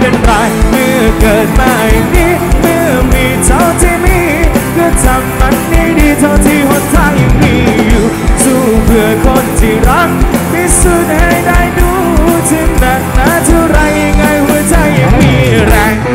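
A live band plays a loud, fast rock-style number through the concert sound system, heard from within the crowd. A steady kick-drum beat runs under dense instruments and a bending melodic line.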